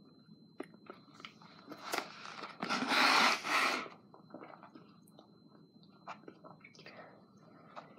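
A boy chewing a mouthful of cinnamon-coated banana: small wet clicks and smacks of the mouth, with one louder rush of noise lasting about a second a little under halfway through.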